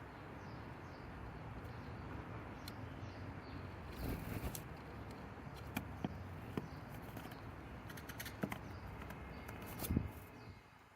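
Outdoor garden ambience: a steady background hiss with a few sharp taps, the loudest near the end, and faint distant bird chirps.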